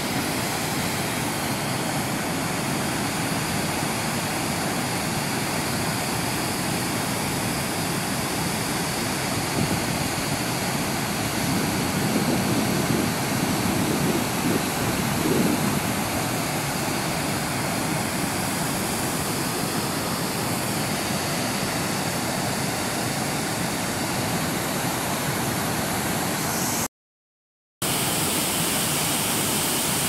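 Waterfall in heavy flood, its water rushing in a steady, even roar. The sound cuts out for about a second near the end, then comes back.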